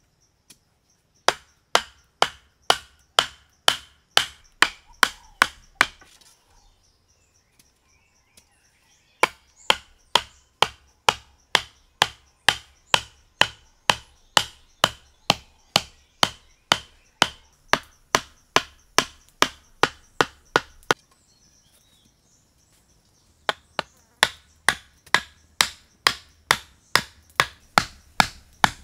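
A blade chopping a wooden stick to a point, with quick, even strokes at about two to three a second. It comes in three runs, with short pauses after about 6 s and 21 s.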